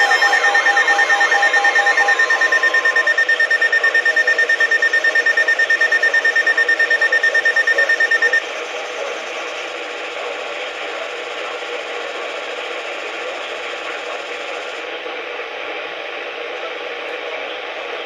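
Weather radio alert tone: a loud, rapidly pulsing high-pitched electronic tone, with lower tones that drop out in the first few seconds. It cuts off suddenly about eight seconds in, leaving steady radio static hiss.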